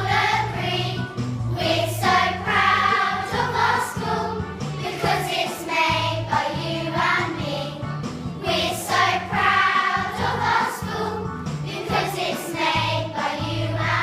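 A group of children singing a song together over an instrumental accompaniment with a steady bass line.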